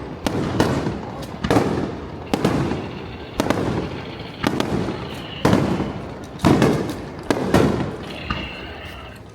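Aerial firework shells bursting in quick succession, about one boom a second, each sharp bang followed by a rolling rumble. The bursts die away near the end.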